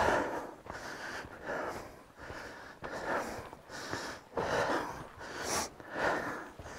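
A hiker breathing hard and panting, out of breath from climbing the trail, with a loud breath about once a second.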